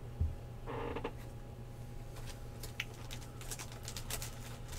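Faint clicks and light taps of trading cards and packaging being handled, with a soft thump just after the start, over a steady low electrical hum.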